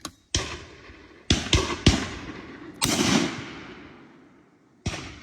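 Airsoft gun firing six sharp shots at uneven intervals, each cracking and trailing off, the fourth one about three seconds in ringing out longest.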